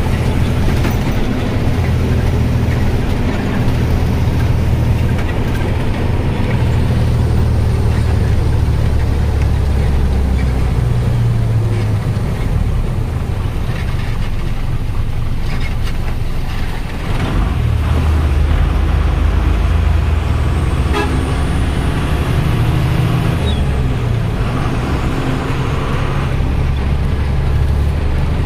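Diesel truck engine running under way, heard inside the cab along with road noise. The engine note drops briefly about seventeen seconds in, then picks up again.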